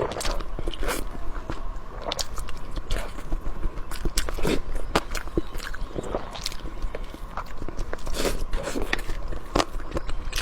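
A person chewing and biting food close to the microphone, with irregular crisp crunches and wet mouth sounds.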